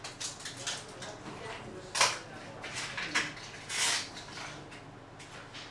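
Dental instruments and materials being handled at chairside: a few short clicks and brief hisses, the sharpest about two seconds in and a longer hiss just before four seconds.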